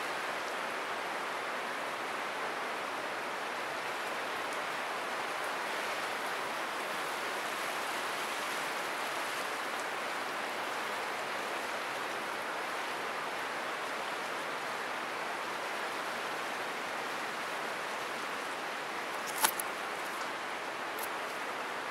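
Steady rushing of the Buna river's water at its spring, an even roar with no rhythm. A single sharp click near the end.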